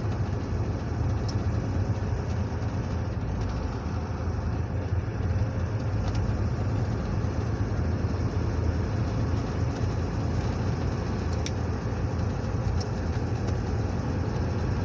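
Steady in-cab drive noise: the vehicle's engine and tyres running at road speed, a low, even hum, with a few faint sharp ticks now and then.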